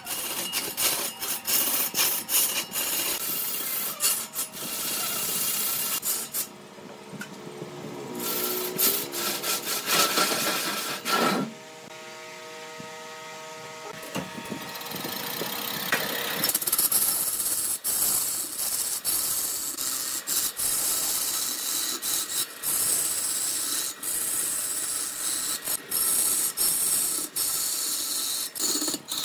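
Woodturning tools cutting into wood spinning on a lathe: a rough, continuous scraping full of short clicks. About halfway the cutting stops for a few seconds and only the lathe's steady hum is heard, then the scraping starts again.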